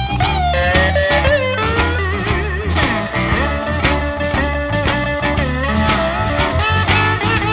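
Instrumental break in a blues-rock song: a lead guitar plays bent, wavering notes over a steady bass line and drums.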